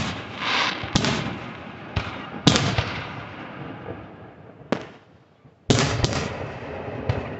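Fireworks: aerial shells bursting in a series of about eight sharp bangs at irregular intervals, each trailing off over a second or so. The loudest bangs come right at the start, at about one, two and a half and six seconds in.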